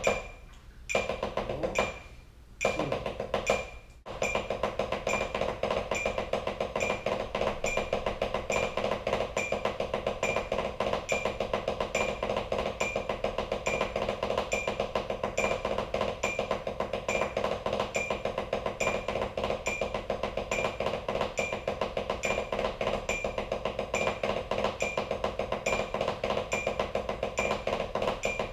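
Drumsticks on a rubber practice pad: a few short bursts of strokes, then from about four seconds in a continuous fast, evenly accented stick roll, a single-stroke roll exercise played in six-note groups.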